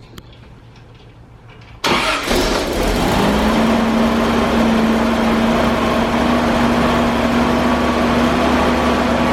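1978 Toyota FJ40 Land Cruiser's 2F inline-six engine starting about two seconds in, catching almost at once, then settling into a steady idle. The engine has a new carburetor and the power to the carburetor solenoid has been restored, the fault that had kept it from idling.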